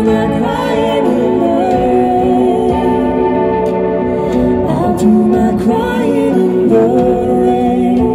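Live pop-rock band playing, with a man and a woman singing together in long, held notes, heard through the echo of a large concert arena.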